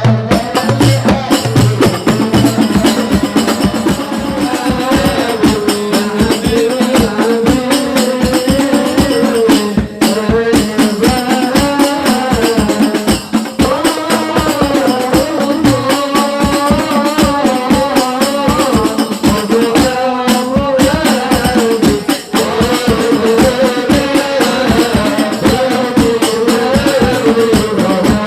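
Music with fast, steady hand-drum and jingle percussion under a wavering sung melody.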